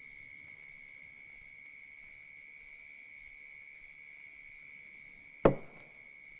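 Night crickets: a steady high insect trill, with short chirps repeating about one and a half times a second. Near the end comes a single sharp knock on a wooden door.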